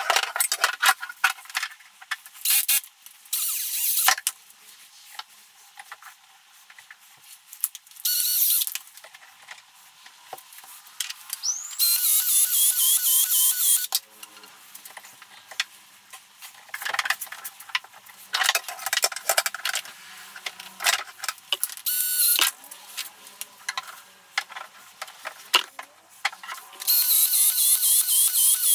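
Milwaukee cordless ProPEX expansion tool running in about six short bursts of motor whine, each a second or two long, as it expands the ends of PEX-A pipe for fittings. Clicks and handling knocks come between the bursts.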